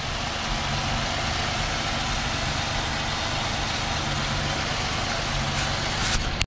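A 2004 Chevy Malibu's 3.5-litre V6 idling steadily on a test run after a new alternator has been fitted.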